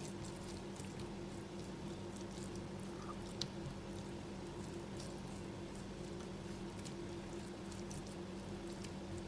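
Faint wet squishing and small clicks of hands rubbing a thick spice paste into whole pomfret, with one sharper click about three seconds in, over a steady low hum.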